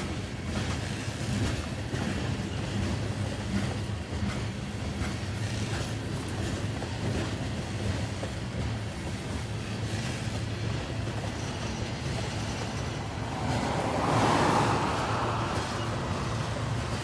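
Freight train of covered hopper cars rolling past: a steady low rumble of steel wheels on rail with faint repeated clicks. A brief swell of rushing noise comes near the end.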